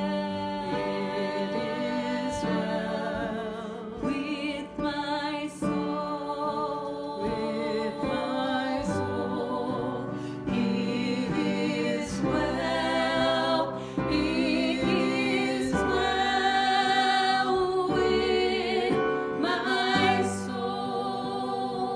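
Music: a worship song sung with instrumental accompaniment.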